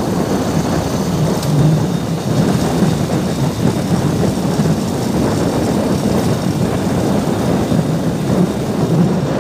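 A vehicle travelling along a steel truss bridge deck: steady, loud road and engine noise with no breaks.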